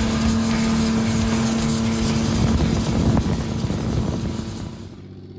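Twin-turbocharged Honda BF225 V6 outboard running hard with a steady high tone, then throttled back near the end, dropping to a much quieter idle.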